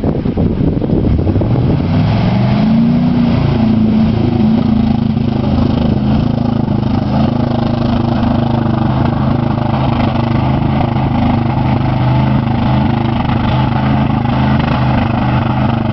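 Ford F-150 pickup's engine pulling hard as the truck drives through a flooded mud hole, with water sloshing around it. The engine note rises about two seconds in, then holds steady.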